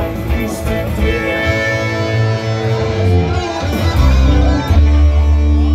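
Two electric guitars, a hollow-body and a Les Paul-style solid-body, played live through Marshall amplifiers in an instrumental passage without singing, with a heavy low end.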